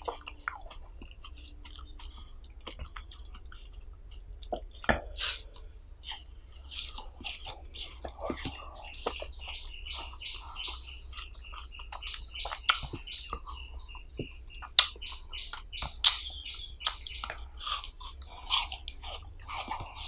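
Close-miked chewing of a frozen red ice pop: wet crackling mouth sounds with many sharp clicks, getting busier from about six seconds in.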